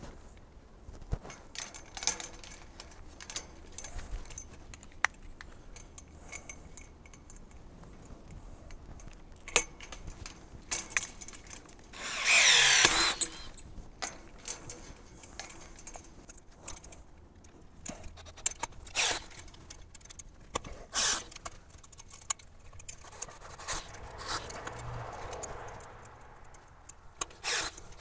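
Hand work on steel deer-fence wire and its loader-mounted fencing rig: scattered metal clicks and jingles, with one loud rasping scrape of metal about twelve seconds in.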